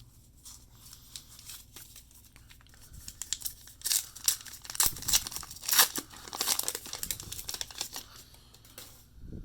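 A baseball card pack's wrapper being torn open and crinkled by hand, starting about three seconds in and going on for about six seconds in a run of sharp crackles.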